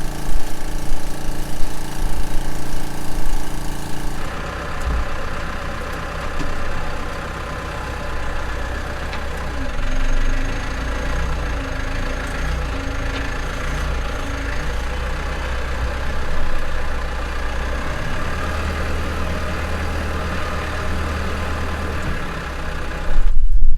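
Farm machinery engine running steadily. The sound changes abruptly about four seconds in, then runs on with small swells in level.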